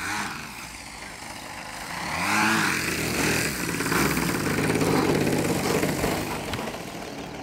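Gasoline engine of a radio-controlled aerobatic plane running as the plane comes in to land. It gets louder about two seconds in, with a brief rise and fall in pitch as it passes close by, then runs on steadily and eases off slightly near the end as the plane touches down on the grass.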